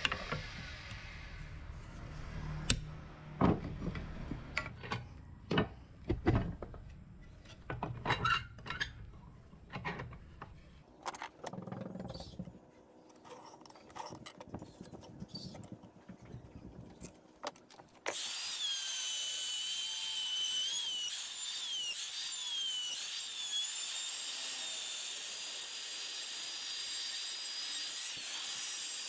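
Irregular knocks and scrapes of hand-tool work for about the first twelve seconds. About eighteen seconds in, a power tool starts suddenly and runs with a steady high whine whose pitch dips and recovers now and then, as if under load.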